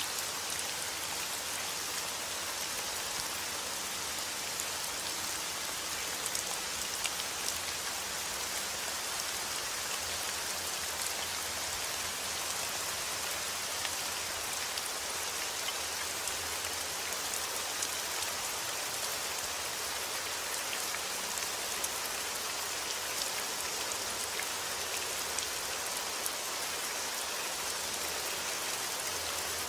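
Steady heavy rain falling outdoors: a constant hiss of rain with many small drop ticks.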